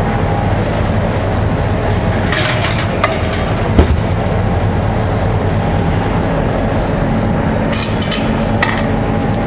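Steady drone of a commercial kitchen's extraction and ventilation running, with two sharp knocks about three and four seconds in as a dish is handled at an under-counter oven.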